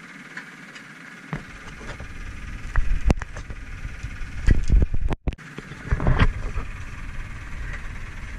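Boat engine running steadily, with a series of irregular knocks and thumps on the deck in the middle seconds as the landed albacore tuna and the gaff are handled.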